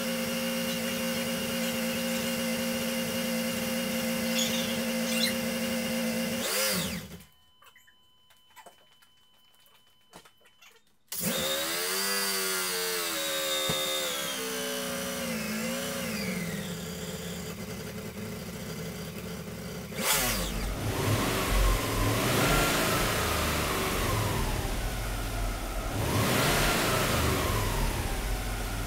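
The freshly rebuilt boxer engine of a Subaru Legacy GT-B runs steadily, then winds down and stops about seven seconds in. After a few seconds of near silence it is running again, its pitch gliding down as the revs settle. From about two-thirds of the way through it runs with a deeper, uneven low rumble.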